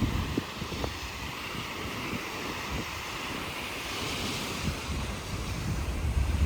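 Wind buffeting the microphone over the wash of sea surf, with the hiss of a wave swelling about four seconds in.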